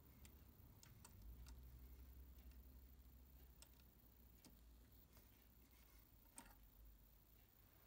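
Near silence with a few faint, scattered clicks of fingers handling the metal bobbin case and rotary hook of an industrial lockstitch sewing machine while the bobbin case is worked out from under the needle plate.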